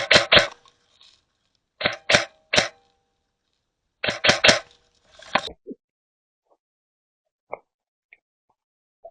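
Airsoft MP5 replica firing several short bursts of rapid pops in the first six seconds, then going quiet apart from faint ticks.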